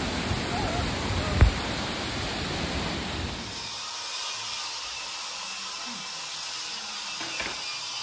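Steady rushing noise of running river water. A low rumble drops away after about three and a half seconds, and there is a single sharp knock about a second and a half in.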